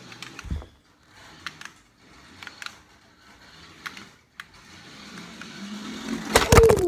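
Toy RC car's electric motor whirring with the wheels clicking and rattling on a hard kitchen floor. The sound grows louder as the car drives toward the camera. Near the end there is a loud clatter as it reaches the camera.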